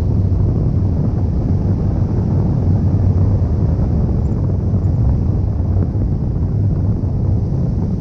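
Wind buffeting the microphone of a tandem paraglider in flight: a steady, loud, low rumble.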